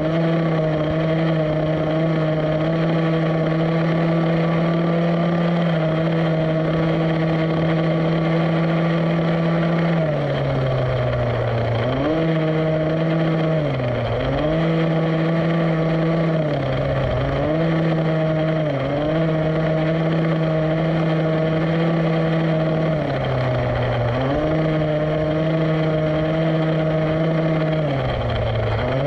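The two-stroke petrol engine of a 1/5-scale Rovan Baja RC buggy running at a steady cruising buzz. Over the second half it briefly drops in pitch several times and picks up again as the throttle is eased and reapplied.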